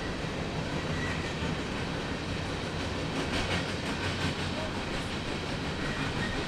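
A train rolling along the track, a steady rumble with a quick run of wheel clacks about halfway through.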